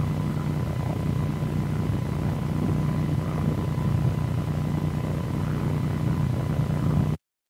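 Steady low droning hum with a faint steady high tone above it, with no clicks or changes; it cuts off suddenly near the end.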